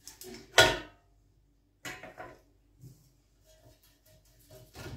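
Kitchenware being handled: one sharp, loud knock about half a second in, a lighter clatter a second or so later, then faint small knocks.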